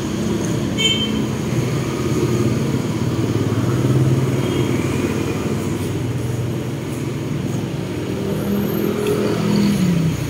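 Motor traffic running steadily close by, a motorcycle-like engine drone that shifts in pitch over a continuous low rumble.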